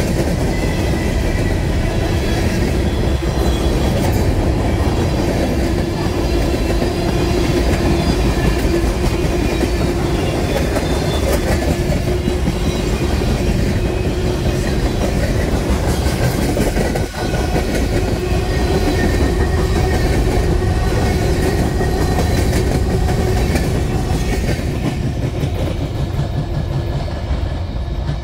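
Freight train cars (tank cars, covered hoppers and boxcars) rolling past at speed: a steady rumble of wheels on rail with clickety-clack over the joints and thin faint high tones from the wheels. It eases off near the end as the last cars go by.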